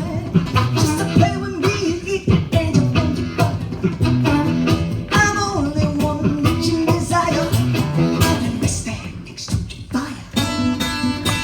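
Live blues instrumental break: harmonica and guitar playing together, with the lead line bending and sliding in pitch over a strummed, percussive rhythm.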